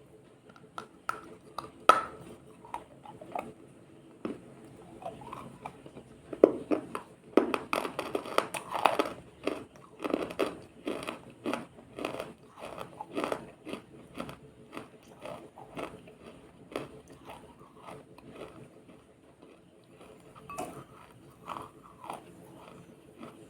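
Close-up biting and chewing of ice: a long run of sharp, irregular crunches, densest and loudest from about six to fourteen seconds in, then sparser.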